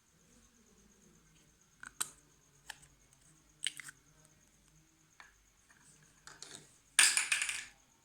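Slime being pressed and handled close up: a few scattered sticky clicks and pops, then a louder, longer squish near the end.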